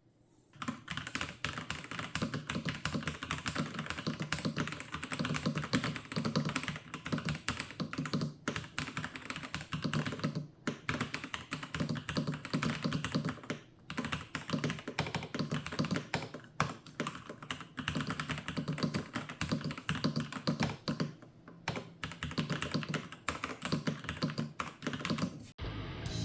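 Continuous fast typing on a NuPhy Field 75 mechanical keyboard with NuPhy Polaris switches and a mix of Royal Kludge pudding and stock NuPhy keycaps, a dense run of key clacks with a few short pauses. Guitar music starts suddenly near the end.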